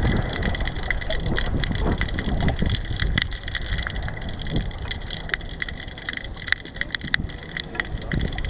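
Wind buffeting the microphone in an uneven rumble, with many small sharp clicks scattered through it.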